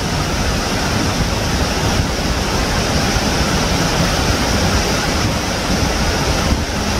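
Steady rushing noise that stays even throughout, spread from deep rumble up to a high hiss.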